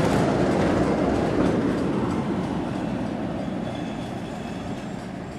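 Baldwin S12 diesel switcher locomotive rolling past and away with a covered hopper car. Its engine and wheels on the rails fade steadily as it recedes.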